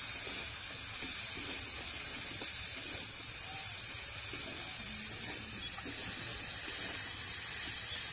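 Diced potatoes sizzling in hot oil in an iron karahi, a steady high hiss, with faint scrapes of a metal spatula as they are stirred.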